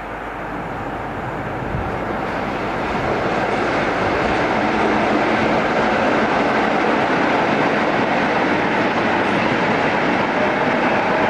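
British Rail Class 47 diesel locomotive with its Sulzer twelve-cylinder engine hauling a train of freight wagons past at close range: a loud rumble of engine and wheels that grows over the first few seconds as it nears, then holds steady as the locomotive and wagons go by.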